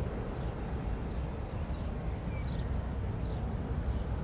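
Steady low rumble of an Airbus A320neo's Pratt & Whitney PW1100G geared turbofan engines as the airliner climbs away after takeoff. Over it, a small bird chirps faintly, about once every second or less.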